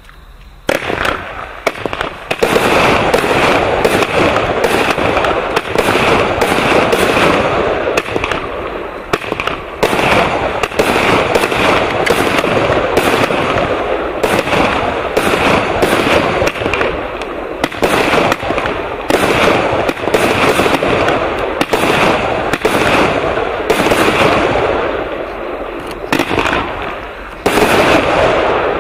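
Gemstone Ruby 88-shot firework cake firing shot after shot: a rapid string of sharp reports over continuous crackle and rumble, starting about a second in and running without a break.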